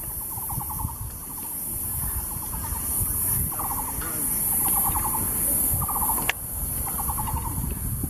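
Taiwan barbet calling: short trills, each a quick run of hollow notes, repeated about once a second, over a steady high hiss.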